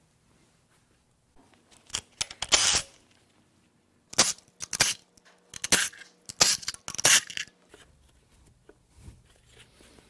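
A cordless power tool run in several short bursts to back bolts out of the front of an engine, with short metallic rattles between bursts.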